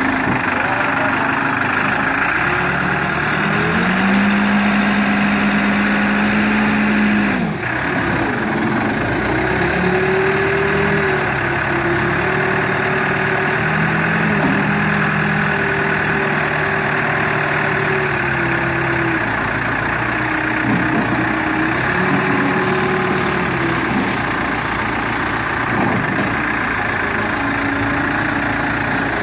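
New Holland B95 loader backhoe's diesel engine running, its pitch stepping up and down every few seconds, with a brief dip about seven and a half seconds in.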